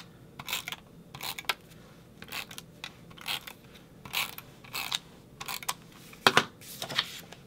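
Hand-held adhesive tape runner drawn across paper in a series of short ratcheting strokes at an uneven pace as it lays down tape, with one louder knock about six seconds in.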